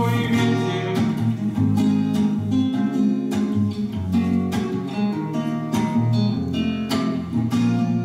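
Acoustic guitar played solo, strumming and picking chords in a steady rhythm: the instrumental closing bars after the last sung verse.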